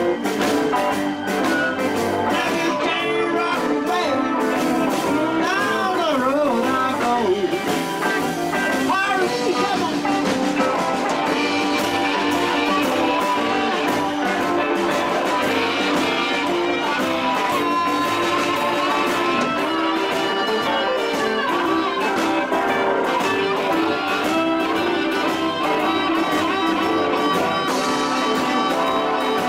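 Blues band playing live: electric guitar and harmonica over upright bass and drums, with notes bending in pitch a few seconds in.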